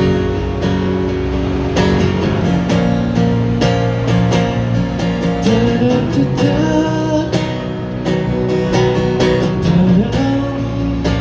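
Live acoustic guitar strumming through an instrumental break, with a melody line above it that slides up and down in pitch around the middle and again shortly before the end.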